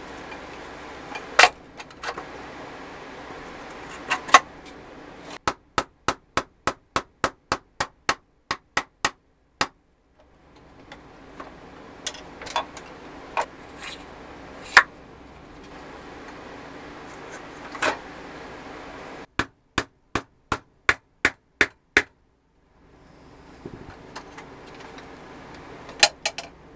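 Sharp taps and knocks from refitting the wheels and axles of a 1970s Tonka steel toy forklift: scattered single knocks and two runs of quick, even taps, about three a second, over a steady low hiss.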